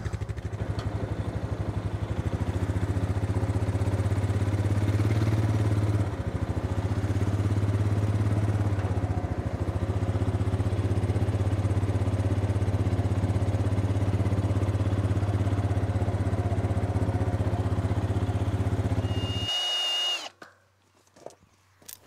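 ATV engine running at low speed, a steady low hum with an even pulse. It cuts off abruptly near the end.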